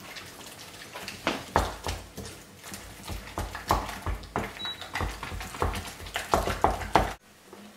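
Wooden spoon beating thick choux pastry dough in a glass bowl, with irregular wet slaps and dull knocks against the bowl, several a second, as the third egg is worked in. It stops abruptly about seven seconds in.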